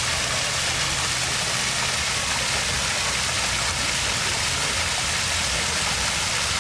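Stream water rushing steadily, an even hiss with a low rumble beneath.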